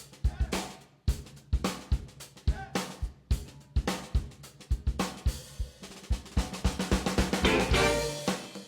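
Background music driven by a drum kit keeping a steady beat, with kick, snare and cymbal hits; pitched instruments fill in more densely near the end.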